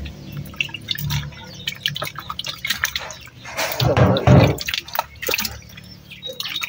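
Water dripping and trickling from a plastic colander into a bucket below. There is a louder splash about four seconds in as hands stir in the colander.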